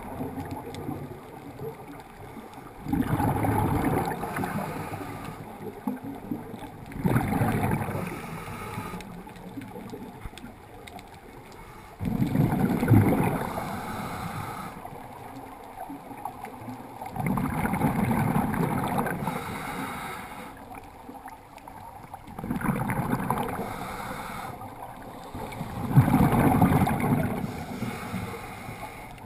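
Scuba regulator breathing heard underwater through a GoPro housing: six bubbly exhalation bursts, one every four to five seconds, each lasting one to three seconds, with quieter stretches of water wash between them.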